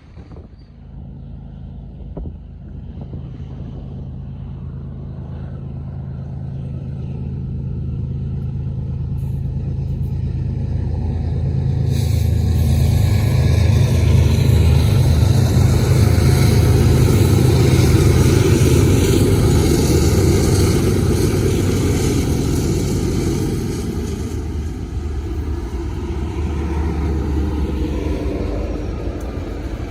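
Diesel freight locomotives approaching and passing with a low, steady engine drone that grows louder to a peak about halfway through, then eases off as the train's rolling noise carries on.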